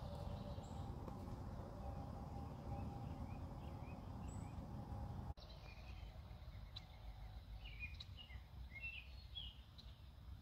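Faint outdoor ambience of birds chirping over a low background rumble; about five seconds in the sound cuts to a quieter stretch where the bird chirps come through more clearly and more often.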